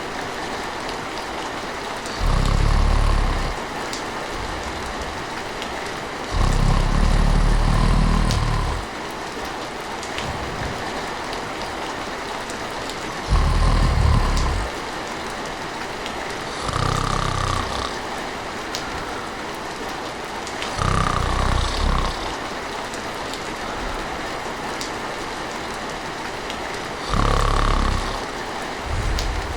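Steady rain falling, with a person snoring over it: six deep snores, each lasting one to two seconds, at uneven gaps of a few seconds.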